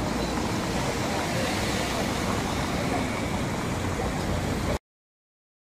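Street noise: a car driving past over cobbles amid the murmur of passers-by, steady until the sound cuts off abruptly near the end.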